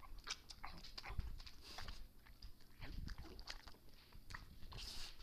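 Bulldog chewing and smacking on a piece of cheese: a run of short, irregular mouth clicks and smacks.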